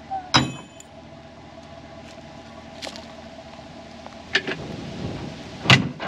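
Steel trailer-hitch parts clanking at a pickup's rear receiver as a hitch is put on: a sharp ringing clink near the start, then a few separate knocks, the loudest near the end, over a steady hum.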